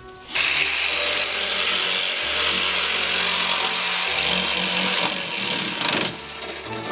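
Handheld power saw cutting through plywood, starting about a third of a second in, easing off briefly near the end and then cutting again.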